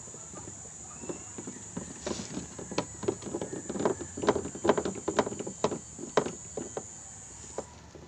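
Irregular clicks and knocks, thickest in the middle, over a steady high whine that cuts off near the end.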